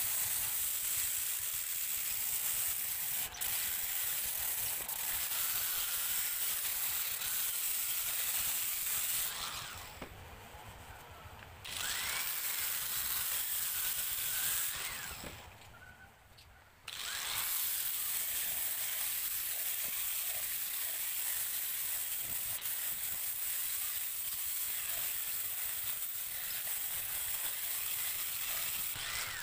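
Handheld power sander running steadily as its pad sands the textured white finish of a plywood subwoofer box, with a thin high whine over the hiss. The sound drops away twice, about ten and sixteen seconds in, and the sander then runs on again.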